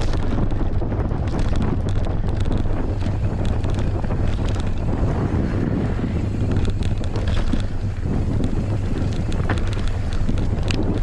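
Wind buffeting the camera microphone on a fast mountain-bike descent, with the Merida One-Sixty rattling over rough trail in many short clicks.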